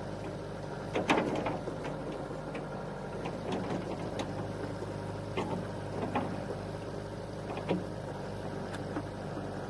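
A steady low hum, as of a small motor running, with scattered light clicks and knocks, about seven in all.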